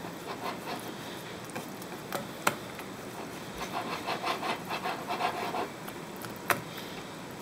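Wire whisk beating thick waffle batter in a glass bowl: soft, rhythmic scraping and squelching strokes, with a couple of sharp clicks of the whisk against the bowl's side.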